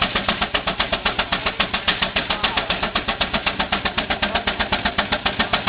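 Advance Rumely steam traction engine working under belt load on a sawmill, its exhaust chuffing in a fast, even beat of about nine puffs a second.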